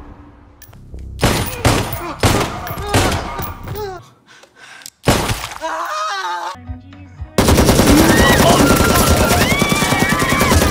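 Film gunfire: a handful of loud gunshots, a short lull, then from a little past the middle sustained rapid automatic fire with people screaming over it.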